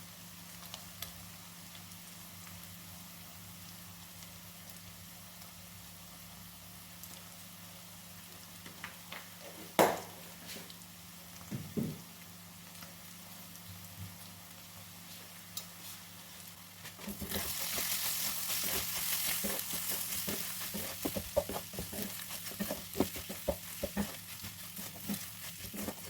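Food frying in a hot pan: a sizzling hiss starts about two-thirds of the way in, with many small clicks of a utensil stirring against the pan. Before that there is only a low steady hum and a couple of sharp knocks.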